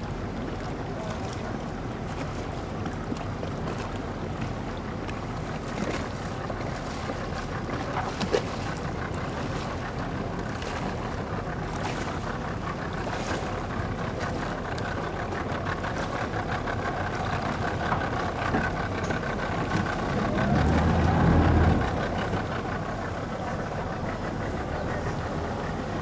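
Outboard boat motors idling and running slowly, a steady low hum with wind noise on the microphone. About twenty seconds in, one motor revs up briefly and drops back.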